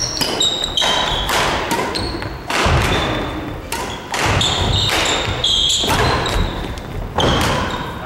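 Badminton doubles rally on a wooden gym floor. Sharp racket hits on the shuttlecock, short high squeaks of sneakers and heavy thuds of footsteps and lunges come in quick succession, with echo after them.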